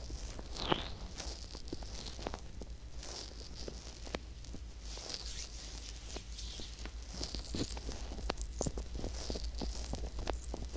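Fingertips rubbing, pressing and squeezing the silicone ear models of a binaural microphone, heard close up: repeated soft rubbing swishes mixed with many small crackles and pops.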